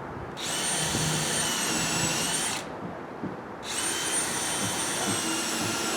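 Craftsman cordless drill driving a countersink bit on an extension holder, boring pocket holes into wooden deck joists through a pocket-hole jig. It runs twice for about two seconds each with a steady high whine, with a short pause between.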